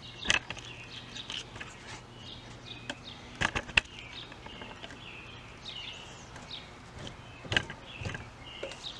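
Birds chirping, with a few sharp clicks and knocks over a faint steady low hum; the loudest clicks are a pair about three and a half seconds in, with more near the end.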